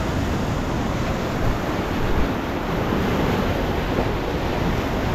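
Ocean surf breaking and washing over shoreline rocks, a steady rushing wash, with wind rumbling on the microphone.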